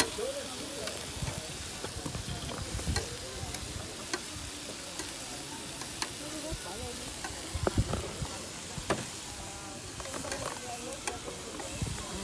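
Chicken, onion rings and zucchini slices sizzling on a hot stainless-steel barbecue hotplate, a steady hiss with a few sharp clicks.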